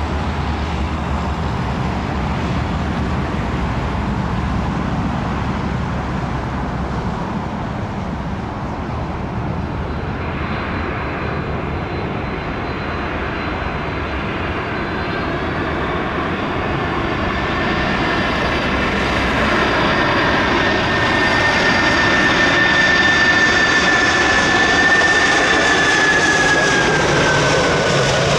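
Jet airliner engines running, with a steady rumble. A high whine comes in about halfway through, grows louder, and falls in pitch near the end as the aircraft passes.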